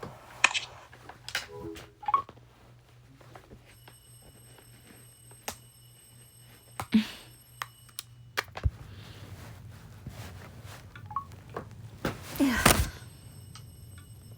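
Scattered knocks, clicks and thumps of things being handled and moved in a small room, with the loudest, longer thump and rustle near the end.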